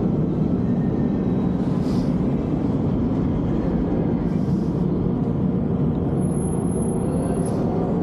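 Steady rumble of street traffic, with three short hisses.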